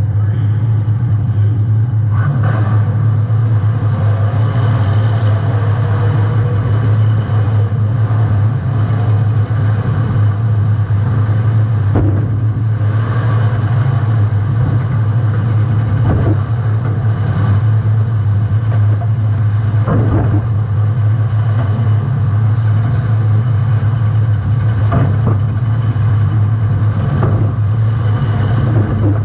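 Welded compact demolition-derby car's engine running hard in a loud, steady drone, broken about six times by sharp bangs of car-to-car hits.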